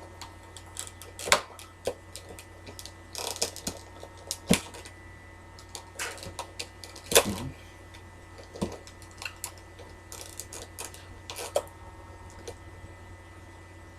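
Irregular plastic clicks and taps from fingers working at a Motorola EM326g slider phone's casing, trying to prise it open.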